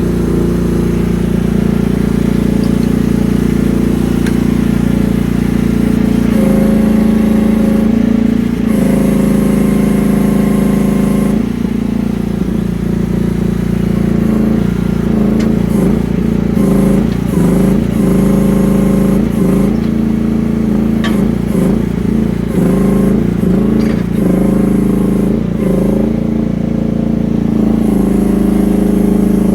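The Briggs & Stratton 13.5 hp engine of a Rippa R10 mini excavator running steadily. From about twelve seconds in, its pitch repeatedly dips and recovers, then settles near the end.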